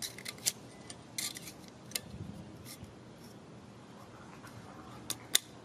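Light metallic clicks and taps as a Weber kettle grill's hollow metal leg and the small part being pushed through its hole are handled, scattered over the first few seconds, with two sharp clicks near the end.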